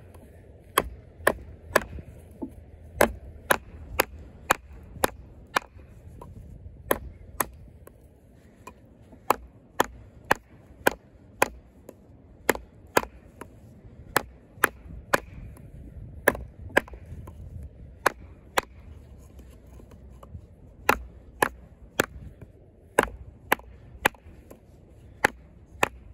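A fixed-blade knife with a 420HC steel blade chopping into a hard, knotty piece of wood. Its sharp strikes come at about two a second, with a few short pauses.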